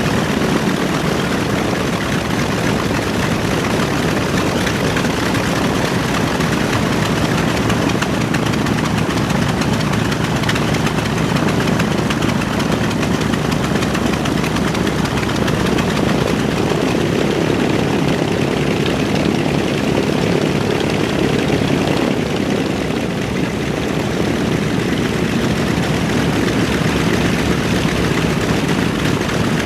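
Twin Wright R-2600 radial engines of a B-25J Mitchell bomber running steadily with a rough, dense propeller drone, holding an even level throughout.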